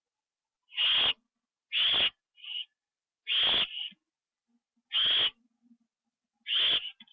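Barn owl giving raspy hissing screeches, five loud ones spaced about a second and a half apart with a shorter, fainter one between the second and third.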